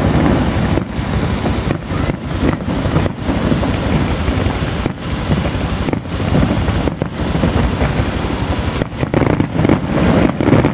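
Fireworks display heard as a continuous dense rumble and crackle of many shells bursting together, heaviest in the low end.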